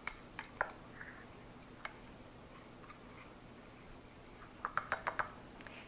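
A spatula ticking against a small stainless steel saucepan while stirring melted butter: a few faint scattered clicks, then a quick run of about six clicks near the end.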